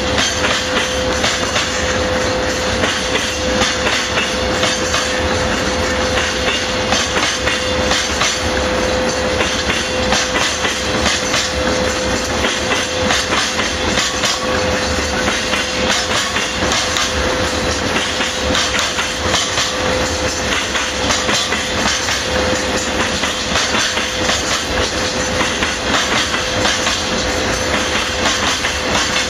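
Freight train rolling past, its wagons' wheels clicking over the rail joints in a continuous clickety-clack, with a steady tone running under it.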